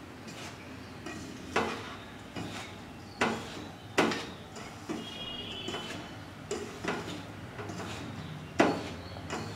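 Hand mixing a crumbly, oil-rubbed maida and semolina mixture in a steel bowl: soft rubbing, with irregular scrapes and knocks of the hand and dough against the bowl every second or two.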